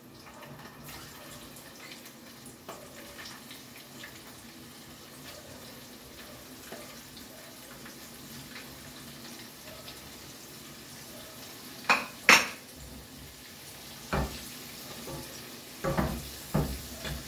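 Clinks and knocks of cookware as breaded tempura is put into a pan of hot oil, the loudest a sharp pair about two-thirds of the way in, then a few more near the end, over a faint steady hiss of the oil frying.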